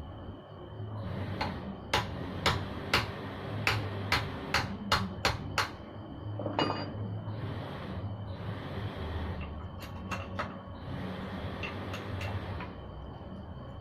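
Hand tools knocking and tapping against metal while a motorcycle is being worked on: a quick run of about eight sharp knocks, then a few more near the end, over a low background hum.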